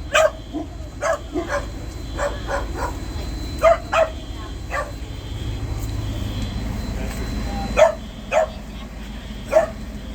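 Dog barking in short, sharp barks, about a dozen, often in quick pairs with pauses between. A low steady rumble runs underneath and eases off about eight seconds in.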